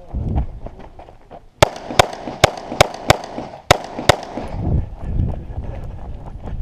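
Seven pistol shots in quick succession, starting a little over a second and a half in and spread over about two and a half seconds, with a slightly longer gap before the last two.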